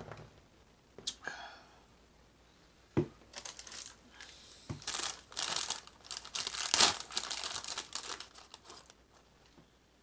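Crinkling and tearing of the wrapper on a sleeve of saltine crackers as it is pulled open, with a knock about three seconds in and the crinkles loudest around seven seconds.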